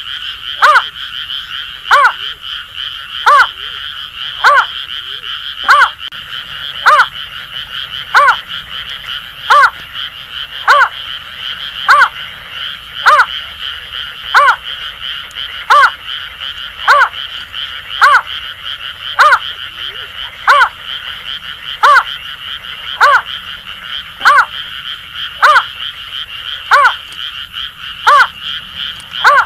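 Greater painted-snipe giving its hooting call, one short note about every 1.2 seconds in an even series. Behind it, a steady high-pitched chorus of Asian grass frogs at night.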